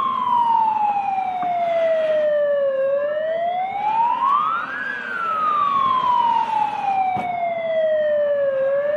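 Fire engine siren wailing in a slow rise and fall: the pitch sinks, climbs over about two seconds, then sinks slowly over about four seconds and starts to climb again near the end.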